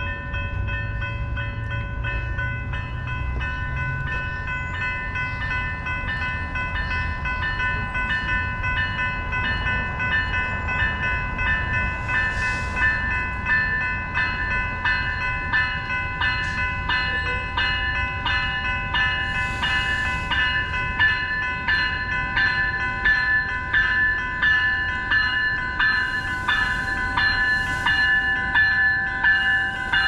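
Railroad crossing warning bells ringing continuously, about two strikes a second, as an NCTD Coaster commuter train approaches the station. The train's low rumble builds toward the end, with a few brief hisses.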